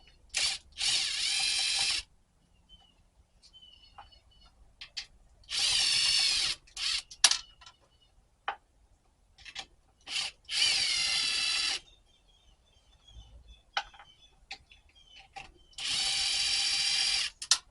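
Cordless drill with a 10 mm socket spinning off small nuts, in four short runs of motor whine about a second or so each, with light clicks of handling between them.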